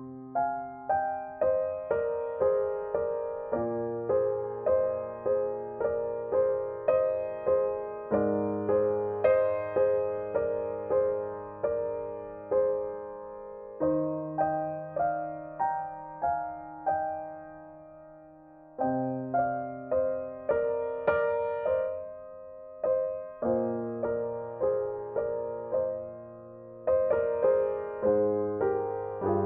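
Background music: a gentle piano piece with a steady run of decaying notes over held bass notes, which soften briefly past the middle before picking up again.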